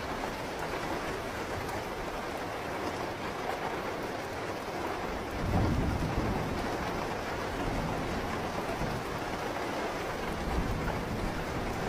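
Steady rain falling, with a low roll of thunder rising and fading about halfway through.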